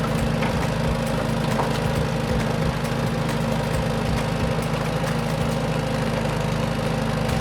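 A vehicle engine running steadily at idle: an even low hum with a few faint clicks over it.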